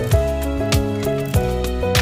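Background music: held melodic notes over a steady kick-drum beat, a little under two beats a second.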